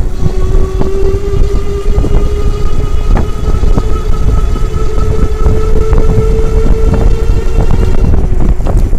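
Lectric e-bike motor giving a steady high-pitched screech with its pitch creeping slightly upward, then fading out near the end; the screech is the motor fault the bike has. Heavy low rumble and scattered knocks run underneath.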